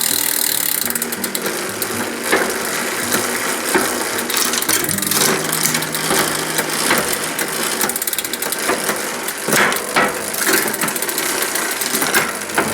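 Bicycle drivetrain turning in the stand: a rapid, steady ratcheting tick from the rear hub's freewheel with the chain running over the cogs, and a few louder clicks along the way.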